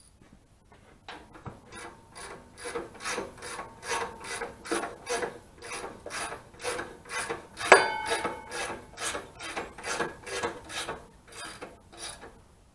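A 1/2-inch drive ratchet worked back and forth to tighten a bolt, the pawl clicking in quick repeated strokes, about two to three a second. One sharp ringing metal clink comes a little past the middle.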